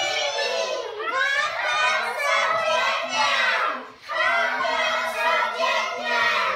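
A class of children reading a sentence aloud together in high-pitched squeaky "mouse" voices, in two long phrases with a short break about four seconds in.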